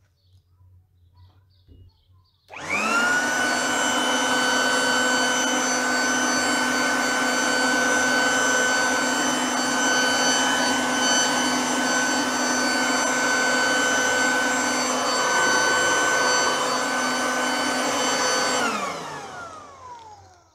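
Leaf blower switched on about two and a half seconds in, its motor spinning up with a rising whine and then running steadily for about sixteen seconds. Near the end it is switched off and winds down with a falling whine. Its tube has been shortened and its outlet narrowed to blow water off cars.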